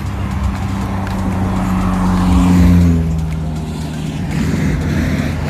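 A motor vehicle drives past, its engine note growing louder to a peak about halfway through, then dropping a little in pitch as it fades away.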